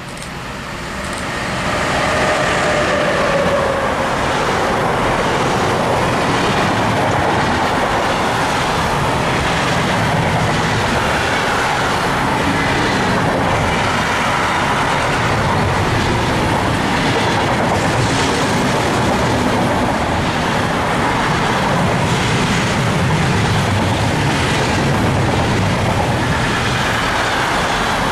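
Container freight train passing close by behind a locomotive. It grows louder over the first couple of seconds as it arrives, with a brief falling whine about three seconds in, then settles into a steady rumble of wagons with wheels clicking over the rail joints.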